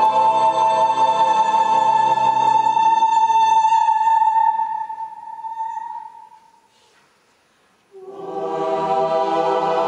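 Choral and chamber music for soprano, choir, strings and organ: a sustained chord with a strong high held note dies away about six seconds in. After a moment of near silence a new held chord enters about eight seconds in.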